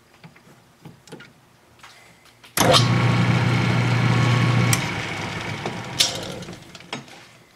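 Metal lathe switched on briefly with the valve-body casting in its three-jaw chuck: the motor starts suddenly with a steady hum a few seconds in, runs for about two seconds, then is switched off and the chuck coasts down while the sound fades. A sharp click sounds during the coast-down.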